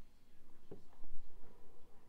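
A person exhaling a large cloud of vape vapour, the breath rushing against the microphone as a low rumble from about a second in.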